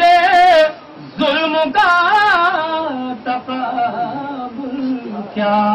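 A man singing an Urdu devotional poem into a microphone, drawing the notes out in wavering, ornamented runs. There is a short break about a second in, and a long steady note is held near the end.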